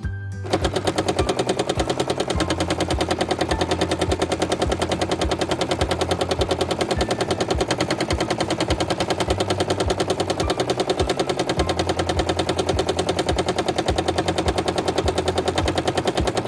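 Domestic sewing machine running fast and steadily while free-motion quilting with a hopping foot: a rapid, even clatter of needle and hopping foot over the motor's hum. It starts about half a second in.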